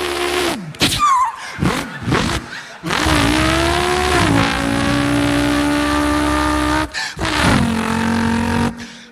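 A man imitating a racing car engine with his voice: a few short revs, then a long held engine note that drops in pitch as if shifting gear and holds steady, cut off and picked up again briefly near the end.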